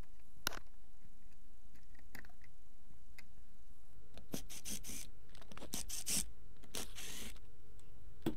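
A sharp click about half a second in, then from about four seconds in a run of scraping and rubbing strokes: a screwdriver working the wire terminal screws of a plastic wall thermostat, and the thermostat body being handled.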